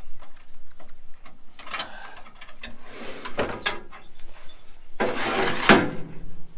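Handling noises at the rear of a Jeep Wrangler as its tailgate is opened: scattered sharp clicks and rustling, then a loud scraping rush about five seconds in that stops suddenly with a knock.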